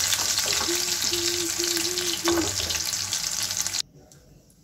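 Batter-coated shrimp pakoras deep-frying in hot oil with a dense, crackling sizzle, while a wooden spatula stirs and scrapes them in the pan. The sizzle cuts off suddenly near the end.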